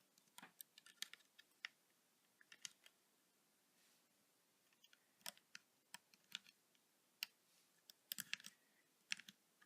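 Faint, irregular small clicks and snaps of rubber loom bands being stretched and looped with a plastic hook on a Rainbow Loom, chaining the bracelet's end.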